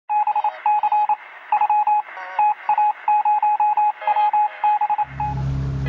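Electronic beeping sound effect: rapid short and longer beeps at a single high pitch in irregular groups, like radio telegraph code, with a few warbling chirps mixed in, sounding thin and tinny. About five seconds in, a steady low music drone comes in under the beeps.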